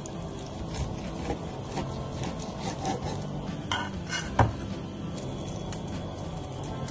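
Kitchen utensils clinking and scraping against food containers, with one sharp metal clink about four and a half seconds in, over soft background music.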